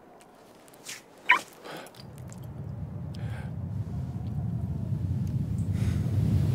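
Cartoon sound effects: a brief chirp about a second in, then a low rumble that starts about two seconds in and swells steadily louder.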